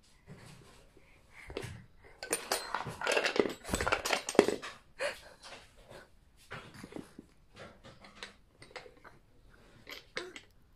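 A baby's hands knocking and clacking on a wooden activity cube toy, with a louder burst of the baby's excited vocal sounds about two to five seconds in.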